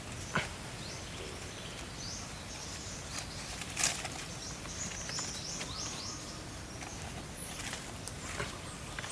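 Forest ambience: a steady background hiss with short, high chirps scattered through it, and a few sharp clicks or snaps, the loudest about half a second in and near four seconds in.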